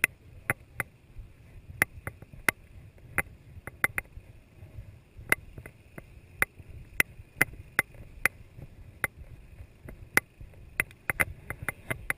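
Sharp clicks and knocks, one or two a second in an uneven rhythm, from rucksack gear and a body-worn camera jostling as a soldier walks, over a low rumble.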